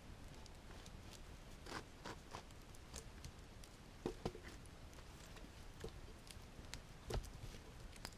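Faint, irregular crackles and snaps, a dozen or so sharp clicks spaced unevenly, over a low steady rumble.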